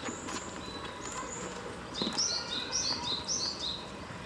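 A small bird calling: a few short high chirps, then three quick runs of falling whistled notes about two seconds in. A few faint clicks sound under them.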